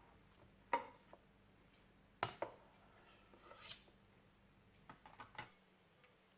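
Kitchen utensils knocking against dishes a few times, with a short scrape around the middle, as in spreading or handling cake and icing.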